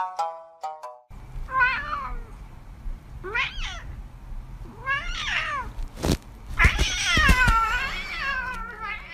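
A cat meowing about five times, the calls getting longer, ending in one long wavering meow. A single sharp knock comes just before the long meow.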